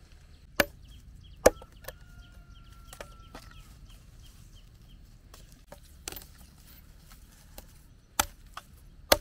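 Machete chopping dry sticks against a wooden log: single sharp chops at irregular intervals, the loudest about a second and a half in and just before the end.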